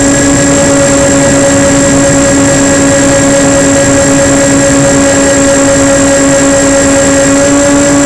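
Twin electric motors and propellers of a Multiplex Twinstar 2 RC plane running at a steady throttle in flight, a constant drone with a slow even pulsing in its lower tone, over loud rushing air noise on the onboard microphone.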